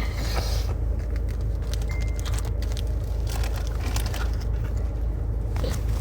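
Low, steady rumble of a car on the move heard from inside the cabin, with scattered light clicks and rattles from the interior.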